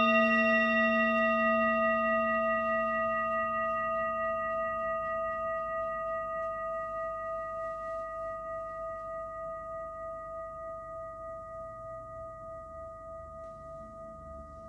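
A singing bowl's long ring: several tones sounding together, the higher ones dying away within the first few seconds, the whole fading slowly with a gentle waver in loudness.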